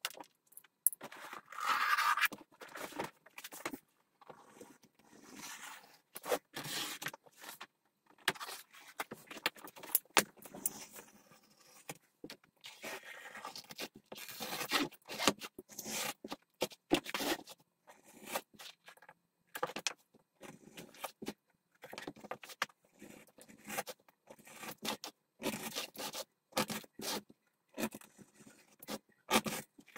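A knife blade drawn through sheet leather in short, irregular scraping cuts, stopping and starting throughout, with the stiff leather sheets rustling as they are shifted between cuts.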